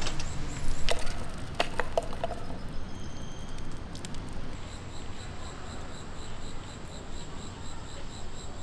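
Outdoor ambience over a steady low rumble: an insect chirps in a high, even pulse about four times a second. A few sharp clicks and knocks come in the first two or three seconds.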